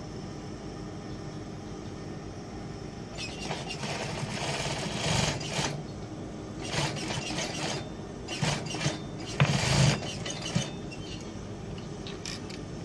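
Industrial lockstitch sewing machine stitching a shirt placket in several short runs of up to about two seconds each, separated by pauses, over a steady motor hum. The runs start about three seconds in and end a little before the close, when the fabric is being handled under the presser foot.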